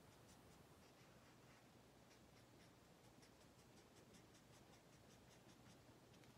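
Faint scratching of a felt-tip marker colouring on paper, in quick repeated strokes.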